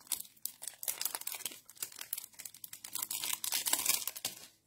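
Clear plastic packaging crinkling and rustling in quick, irregular crackles as a die set is unwrapped by hand, loudest about three to four seconds in.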